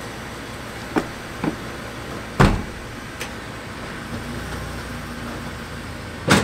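The driver's door of a U-Haul box truck slamming shut about two and a half seconds in as someone climbs into the cab, after a couple of light knocks. Another loud knock comes near the end.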